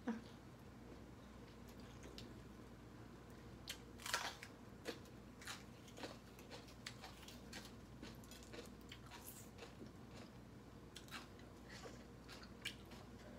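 A person chewing crunchy food, a string of small crisp crunches, the loudest about four seconds in.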